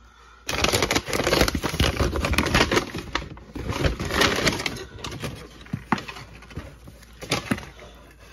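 Brown paper mailer bag being torn open and crumpled: dense crackling rustle for about four seconds, then scattered rustles and a few sharp crackles as a box is pulled out of it.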